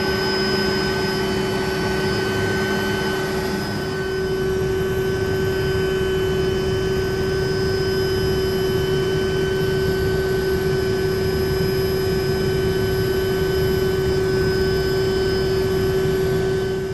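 Helicopter turbine and rotor noise heard from inside the cabin in flight: a steady drone with several held whining tones. A lower tone drops away about four seconds in.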